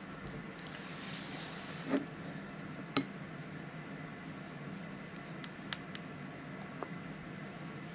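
Spoon knocking against a glass bowl: two sharp clinks about a second apart, then a few fainter ticks, over a steady low hum.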